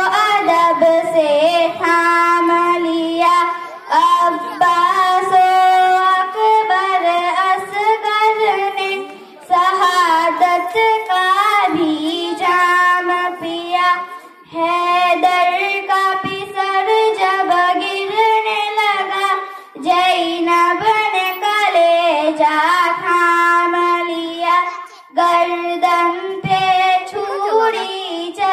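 A young girl singing a naat, an Urdu devotional poem in praise of the Prophet, solo into a microphone. She sings in long melodic phrases, with a short break for breath every few seconds.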